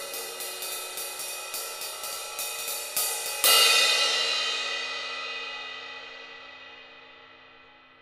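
A 16-inch Sabian AA Rock Crash cymbal, its crack repaired, tapped with nylon-tipped drumsticks at about three light strokes a second. About three and a half seconds in it is struck hard once and left to ring, the wash fading steadily away.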